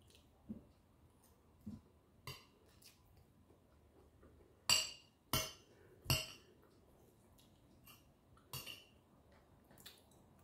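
A metal spoon clinking against ceramic dishes while eating: scattered light clinks, then three louder ones in quick succession about halfway through and another a couple of seconds later.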